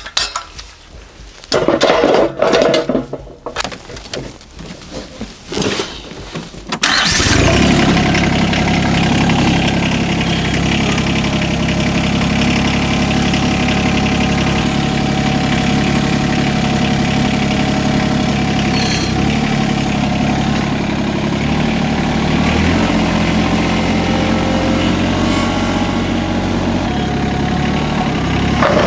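Irregular clattering for several seconds, then an engine starts about seven seconds in and runs steadily, its pitch shifting a little a couple of times later on.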